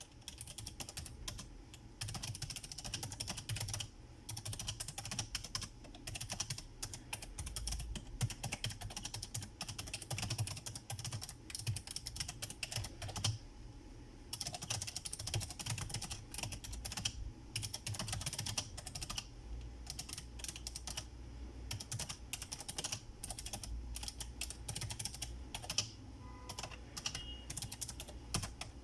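Typing on a Razer Ornata Chroma mecha-membrane keyboard: a rapid, uneven stream of key clicks with a few brief pauses.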